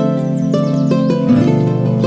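Background music of plucked strings, harp-like notes over a held chord that changes a little past halfway.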